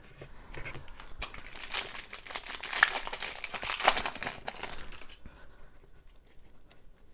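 Foil wrapper of a 2003-04 Topps Traded & Rookies hockey card pack being torn open and crinkled by hand: a dense crackling rustle from about half a second in that dies down after about five seconds, leaving faint ticks as the cards are handled.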